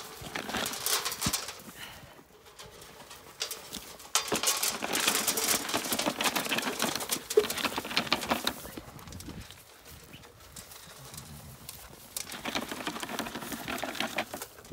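Dry feed rattling into a metal trough, and Zwartbles rams crowding in and crunching it, with scuffing hooves. It comes in several busy stretches of clicking and crunching, with quieter spells between.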